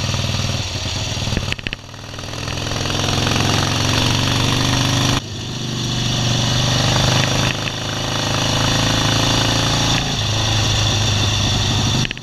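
Motorcycle engine running at road speed, its pitch climbing steadily between a few sudden breaks, about one and a half and five seconds in.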